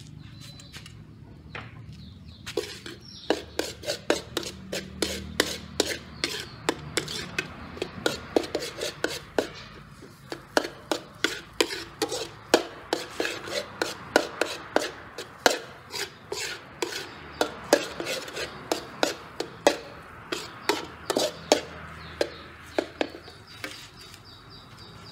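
Metal spatula scraping and knocking against a metal wok as scrambled egg is stirred and broken up, in quick irregular strikes of about two to three a second. It starts about two and a half seconds in and stops shortly before the end.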